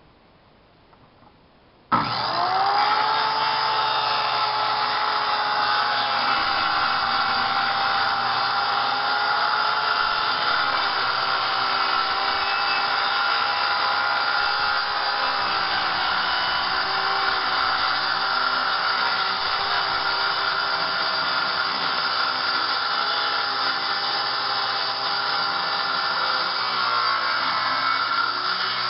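Circular saw starting about two seconds in, its whine rising as the motor spins up, then running steadily as the blade cuts a long line across a sheet of plywood.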